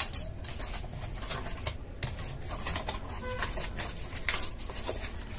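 Cardboard packaging being handled: box flaps pulled open and rubbing, with rustling, scraping and light clicks. There is a sharp knock at the very start and another about four seconds in.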